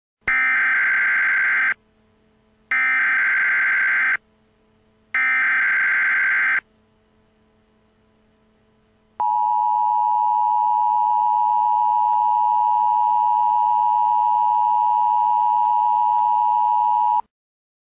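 Emergency Alert System SAME header: three bursts of screeching digital data tones, about a second and a half each, with short gaps between them. These are followed by the NOAA Weather Radio warning alarm tone, one steady pitch held for about eight seconds, which signals that a warning message follows.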